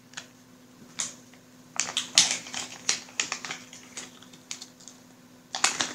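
Small hard plastic miniature parts clicking and rattling as they are picked through and handled, in an irregular run of sharp little clicks with a busier cluster in the middle and another near the end.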